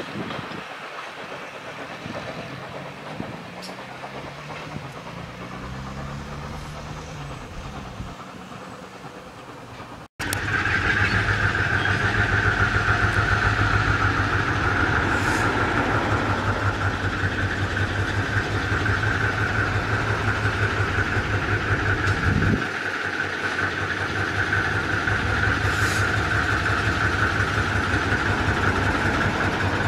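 Vintage train carriages rolling past on the track, fairly quietly. About ten seconds in, the sound cuts to a small locomotive standing and running: a louder, steady low rapid throb with a constant high whine over it, briefly dipping about two-thirds of the way through.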